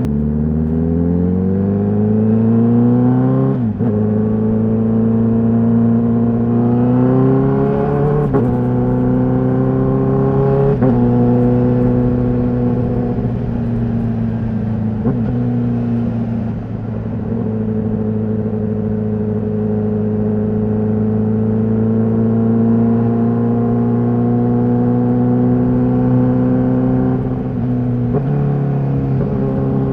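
Honda CBR1000RR-R SP's inline-four engine through its stock exhaust, accelerating and rising in pitch, with the pitch dropping sharply at each of several quickshifter upshifts. After the last upshift it holds a nearly steady cruise, then steps down once near the end.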